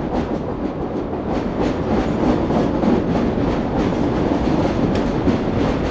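Chicago elevated L train running on the track overhead: a loud rumble with rapid clattering of wheels on rail, getting a little louder over the first couple of seconds.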